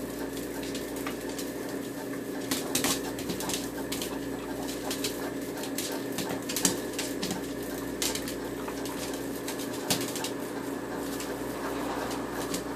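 A dog scuffling after a cicada on a kitchen floor: scattered sharp taps and clicks, bunched about two to three seconds in and again later, over a steady low hum.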